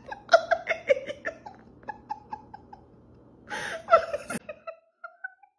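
A person laughing in a run of short rhythmic bursts that trail off, then a loud breathy burst of laughter about three and a half seconds in, followed by a few short fading notes.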